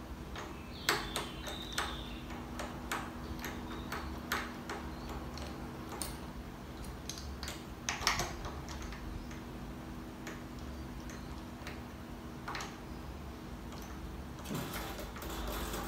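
Irregular light clicks and ticks of a new string being wound onto a tuner at a 12-string guitar's slotted headstock, the string held in the slot while the tuner is turned with a winder. A few sharper clicks stand out.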